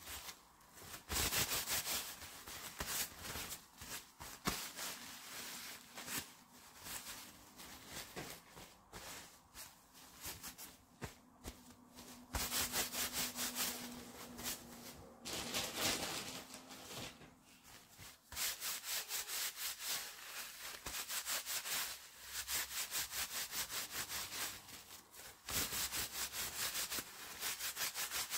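Disposable diaper crinkling and rustling as it is handled, in stretches of quick, even rubbing strokes with short pauses between them.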